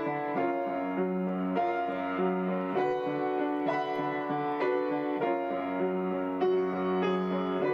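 Piano accompaniment playing an instrumental interlude without vocals, with new notes and chords struck about once a second.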